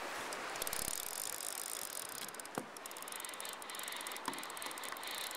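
Fly reel's click-and-pawl drag ratcheting in a fast, continuous run of clicks as line moves through it while a hooked fish is being played.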